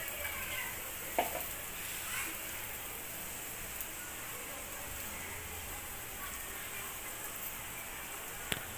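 Aloo paratha frying in butter on a flat tawa griddle, a steady sizzle as a metal spatula presses it down. Two short sharp clicks stand out, one about a second in and one near the end.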